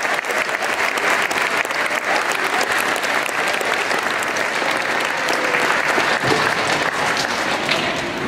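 An audience clapping steadily in a gymnasium: a sustained round of applause.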